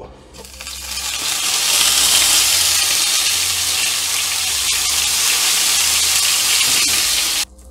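Olive oil sizzling hard in a hot frying pan with a chili pepper and a dash of Tabasco just added, throwing up steam. The sizzle builds over the first second or so, holds steady, then stops abruptly near the end.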